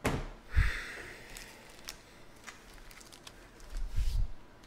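Foil-wrapped trading card packs being handled and moved on a table: crinkling of the foil wrappers with small clicks, and a dull thump about half a second in and again near the end as packs are set down.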